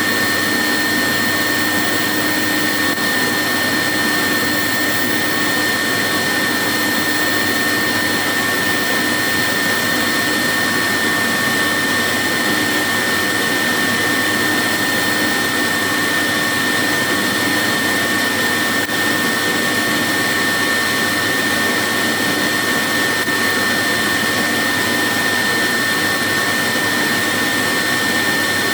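1973 Goblin 702 cylinder vacuum cleaner's twin-fan 750-watt bypass motor running flat out while vacuuming sand from a carpet: a loud, steady high whine over a rush of air that doesn't change.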